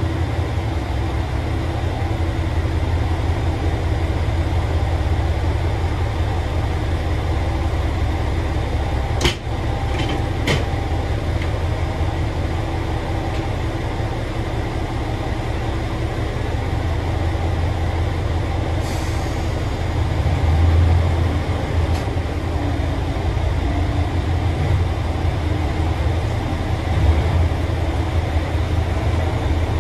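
Diesel engines of KTR8000-series railcars running with a steady low rumble as the cars creep together for coupling. Two sharp clicks come about nine and ten seconds in, and a short hiss about two-thirds of the way through.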